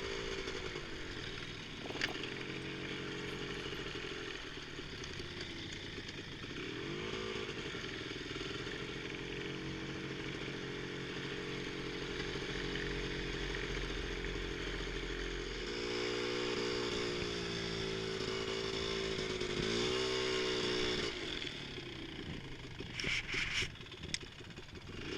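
Polaris Scrambler ATV engine running, with brief revs about a third of the way in and again near the end, plus a few knocks and rattles.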